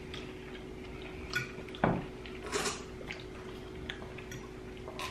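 Metal forks clinking and scraping on dinner plates while eating: a few scattered light clicks and knocks over a faint steady hum.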